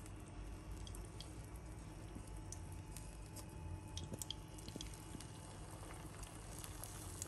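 Hot oil in a frying pan crackling and spitting faintly in scattered small ticks as wet, egg-coated chicken parcels are laid in, over a low steady hum.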